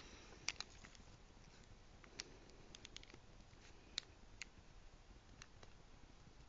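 Faint, scattered light clicks and ticks, about a dozen at irregular spacing, from small tools and plastic and metal parts of a Nokia 5800 phone being handled during disassembly. The sharpest clicks come about half a second and four seconds in.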